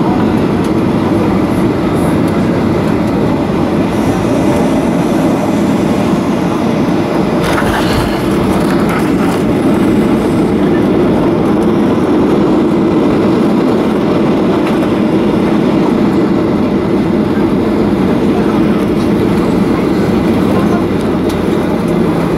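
Cabin noise of a Boeing 737-800 landing, heard inside the cabin: the steady, loud rumble of its CFM56 engines and rushing air. About eight seconds in there is a brief jolt as the wheels touch down, and the rumble carries on through the rollout with the spoilers up.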